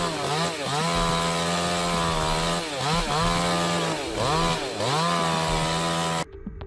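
Two-stroke chainsaw running at high revs, its pitch dipping and climbing back several times as it loads in the cut. The sound cuts off suddenly near the end.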